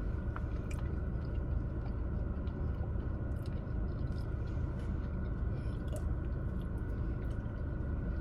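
A person chewing a mouthful of loaded carne asada fries close to the microphone, with small wet mouth clicks, over a steady low rumble.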